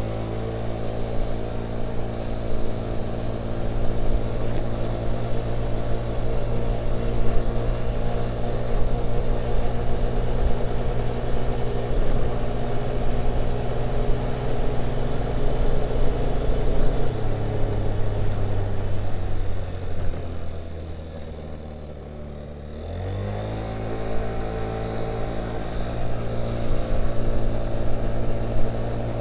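Motor scooter engine running steadily, making a noise its owner finds strange. About 17 seconds in the engine note drops, sags lower and quieter for a few seconds, then picks back up quickly about 23 seconds in.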